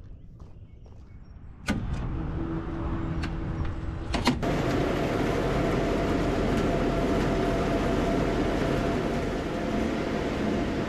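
Belt-conveyor cattle feeder over a feed bunk starting up and running. The level jumps suddenly about two seconds in, a few clicks and knocks come near four seconds, and then a steady mechanical whir with a faint hum runs on.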